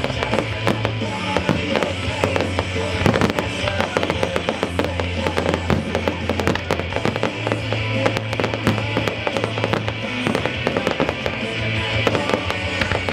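Show firework display: a dense run of bangs and crackles from bursting aerial shells and ground effects, over music with long held bass notes.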